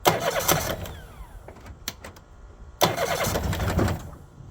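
Honda BF25A four-stroke outboard being cranked over twice on a test start after a carburettor rebuild. It turns over in two bursts of about a second each, with a pause between, and does not catch yet.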